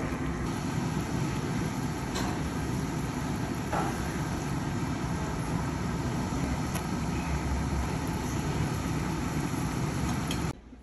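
Mushroom cream sauce bubbling and sizzling in a frying pan, a steady rumbling hiss with a few faint clicks. It cuts off suddenly near the end.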